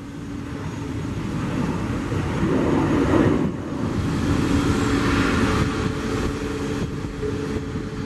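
Boeing 737-400's CFM56 turbofan engines at takeoff power as the airliner climbs out: a loud jet roar that builds to its loudest about three seconds in, with a steady droning tone under it.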